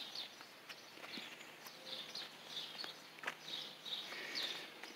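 Quiet outdoor background with faint, high-pitched bird chirps and a few soft clicks.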